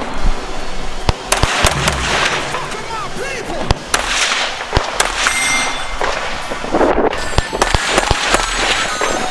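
Rifle shots in quick, irregular strings from a practical-shooting stage, each a sharp crack over a busy, noisy background.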